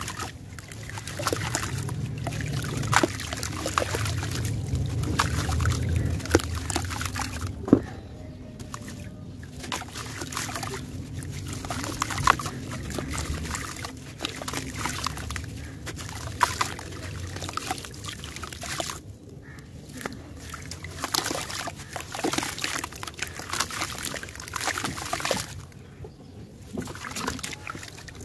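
Gritty chunks crumbled by hand into a tub of water: grains and crumbs pattering and trickling into the water with a steady crunching crackle and a few sharper cracks, and water sloshing as the hands work in it.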